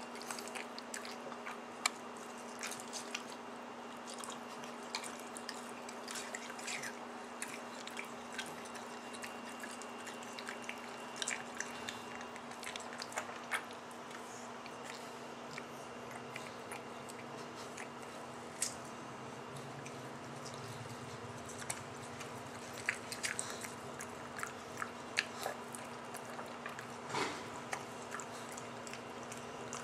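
A pug licking and mouthing a wedge of watermelon held out to it, lapping at the flesh rather than biting: scattered short wet smacks and slurps over a steady background hum.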